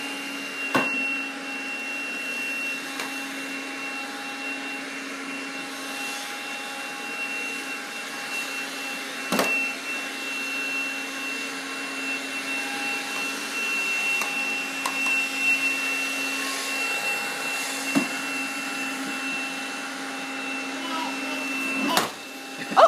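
Toy vacuum cleaner running with a steady whirring hum as a toddler pushes it across the carpet, with a few sharp knocks as it is bumped about.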